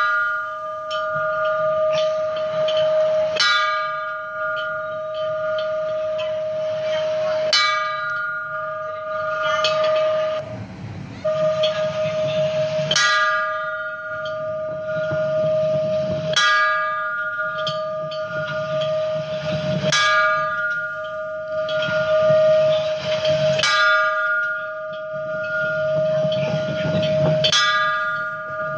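Hanging metal temple bell rung repeatedly, struck about once every three to four seconds, its long ringing tone carrying on between strokes.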